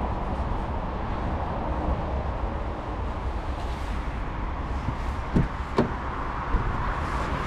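The driver's door of an Opel Corsa-e being opened: two sharp clicks a little over five seconds in, from the handle and latch releasing. Steady background hiss and hum throughout.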